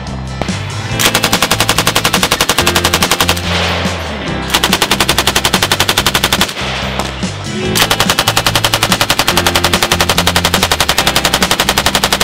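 Belt-fed machine gun firing three long full-auto bursts, the last the longest, over background music with a low bass line.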